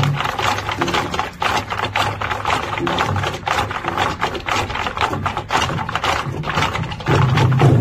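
Ensemble of Korean barrel drums beaten with sticks in a fast, dense flurry of strikes over a steady low drum boom. The drumming gets louder and heavier about seven seconds in.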